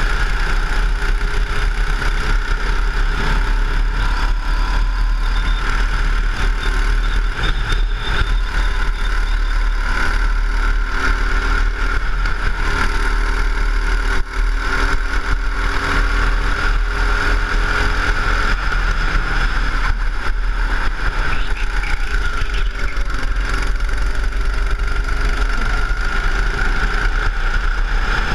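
Go-kart engine running continuously at speed, its pitch rising and falling through the corners, over a heavy, steady low rumble. Loudness dips very briefly about halfway through.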